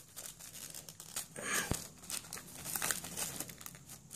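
Cellophane shrink-wrap being torn and peeled off a Blu-ray box set, crackling and crinkling irregularly, with a louder tear about a second and a half in.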